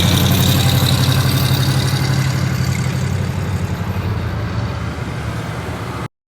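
Motor vehicle engine running with a steady low hum that slowly fades, then all sound cuts off suddenly near the end.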